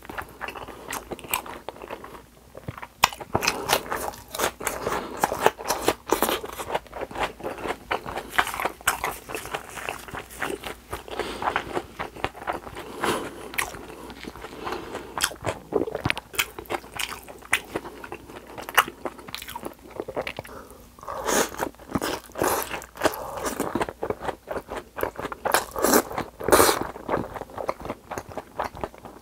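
Close-miked eating: crisp crunching and chewing of breaded deep-fried pork cutlet with spicy cold noodles, many sharp crunches throughout. Near the end, noodles are slurped into the mouth.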